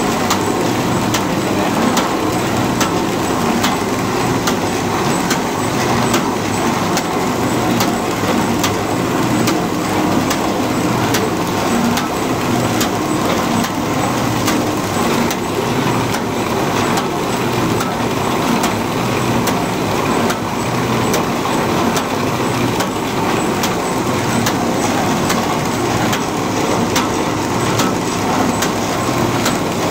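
Paper bag making machine running steadily: a constant mechanical clatter from its rollers and drive, with a sharp click repeating at an even beat.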